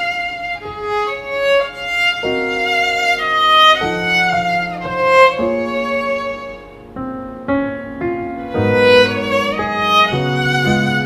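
Background music led by violin, playing a melody over a string and piano accompaniment that deepens near the end.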